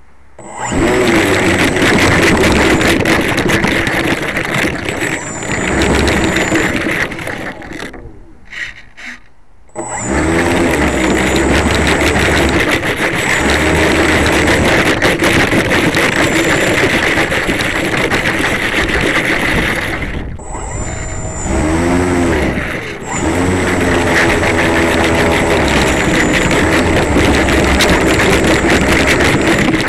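RC plane's motor and propeller running at high power, heard close up from an onboard camera as the plane taxis on ski-fitted undercarriage over snow. The power is cut off abruptly about eight seconds in, blipped briefly a few times, then opened up again; around two thirds of the way through it is throttled back, the pitch falling and then rising as it spools up again to full power.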